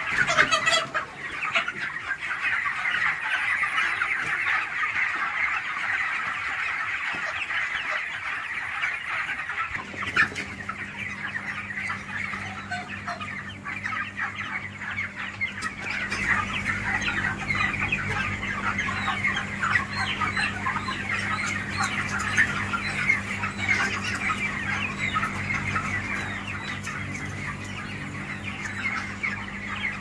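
A large flock of broiler chickens calling continuously, a dense chatter of many overlapping calls. About a third of the way in, a steady low hum joins beneath it.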